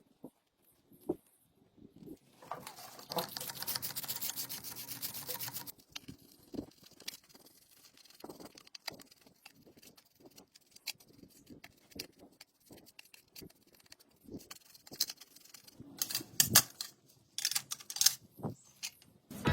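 Small clicks and taps of tools and parts being handled during phone repair work, with a harsh, steady noise lasting about three seconds, starting a couple of seconds in.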